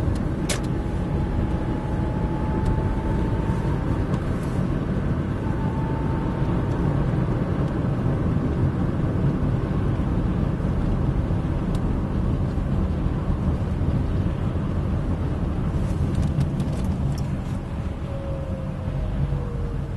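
Car engine and road noise heard from inside the cabin of a moving car, a steady low rumble with a faint whine. A single click sounds about half a second in, and the whine falls in pitch near the end.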